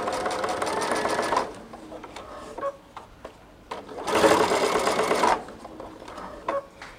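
Sewing machine stitching through layers of fabric in two short runs, one at the start and one about four seconds in, stopping between them with a few small clicks as the bag is turned.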